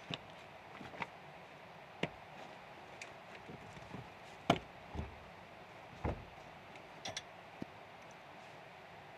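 A series of irregular knocks and thuds, the loudest three coming close together past the middle, typical of hand work with a jack, wedges and a timber during a log-wall repair.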